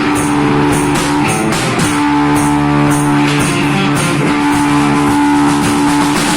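A children's hard-rock band playing live: electric guitar holding long chords over bass guitar, with a drum kit keeping time on cymbals and drums.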